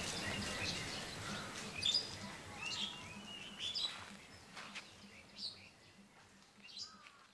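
Birds chirping and calling: scattered short chirps and quick sweeps over a faint outdoor hiss, fading away toward the end.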